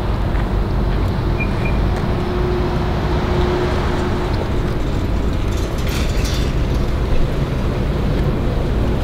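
Steady low rumble of outdoor street ambience, like distant traffic. There are two short high chirps about a second and a half in and a few brief clicks around six seconds in.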